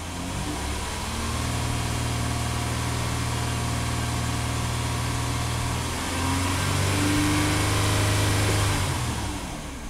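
2010 Honda Ridgeline's 3.5-litre V6 revved from idle and held at about 2,400 rpm, stepped up to nearly 3,000 rpm about six seconds in, then let back down toward idle near the end. It is being revved to check mass airflow and fuel trims for a lean condition, with a hole in the intake air tube taped over.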